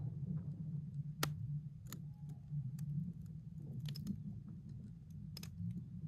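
Thawing lake ice in spring clicking and tinkling as the ice lets go: a handful of sharp, irregular clicks, the sharpest about a second in and a small cluster around four seconds in, over a steady low hum.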